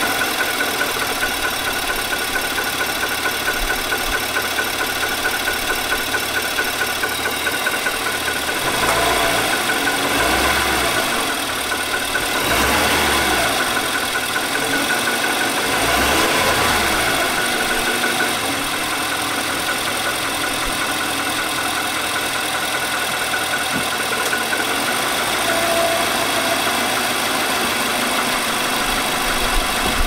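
Nissan Armada's 5.6-litre gasoline V8 idling with a heavy, regular engine knock that sounds like a diesel. The knock is the one Nissan's service bulletin ties to a scuffed cylinder wall, which needed a replacement short block.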